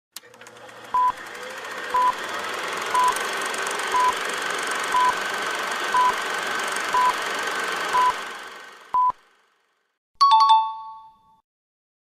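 Quiz countdown timer: nine short, even high beeps, one a second, over a steady background drone that fades out after the last beep. About a second later comes a short two-note chime that marks the answer.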